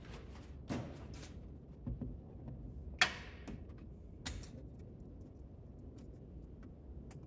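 Scattered light clicks and knocks of things being handled, with one sharper knock about three seconds in and another a second or so later.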